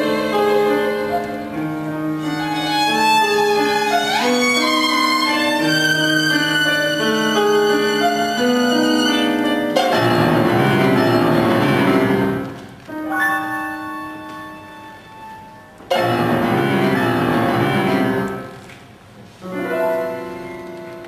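Violin and piano playing a contemporary classical piece: held violin notes with a quick upward slide about four seconds in, then loud full chords about ten seconds in and again about sixteen seconds in, each ringing and dying away.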